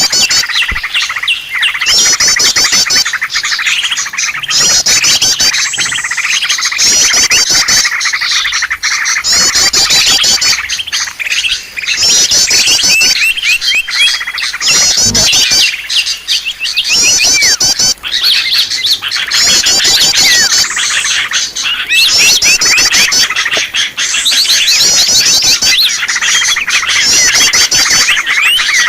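Dense, noisy chorus of many small birds chirping and twittering, the kind of recording used to lure wild birds. A rapid high trill repeats every second or two over the chorus.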